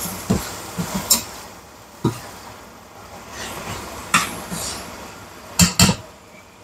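A cooking utensil knocking and scraping against a frying pan while vegetables are stir-fried, giving several sharp clacks and a quick double clack near the end.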